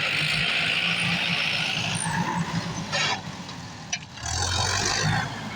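Heavy machine's diesel engine running hard at full power. It drops back about three seconds in, with a couple of sharp clicks, and picks up again near four seconds.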